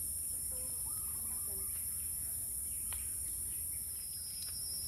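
Forest ambience: a steady, high-pitched insect drone, with a few faint bird chirps in the first couple of seconds.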